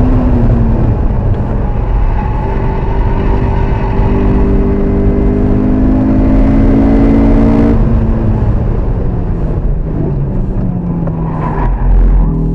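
Honda S2000's four-cylinder engine, heard from inside the cabin, working hard on a race track. It winds high at first and eases down. It then climbs steadily in pitch under full throttle for several seconds and drops sharply as the driver comes off the throttle. It keeps falling as the car slows for a tight corner, with a short louder swell near the end.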